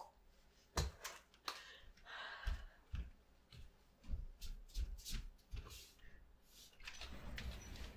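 Soft footsteps and rustling of a person moving about a small room, with scattered light clicks and knocks.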